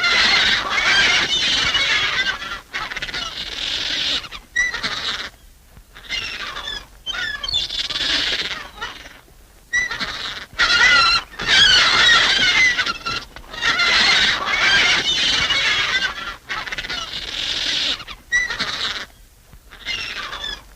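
Cartoon seagull sound effect: rapid, overlapping squawks and cries in loud bursts of a second or two, broken by short pauses.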